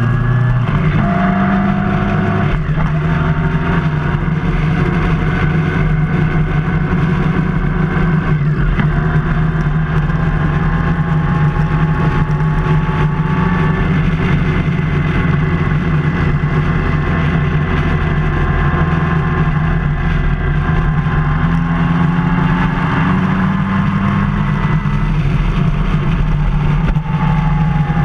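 Motorcycle engine running steadily at road speed, heard from the rider's own bike, its pitch shifting up and down a little a few times with the throttle, over steady wind and road noise.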